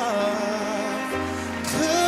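A singer holds and lets go of the last note of a sung line over a slow band accompaniment of sustained chords, with a deep bass note coming in about a second in.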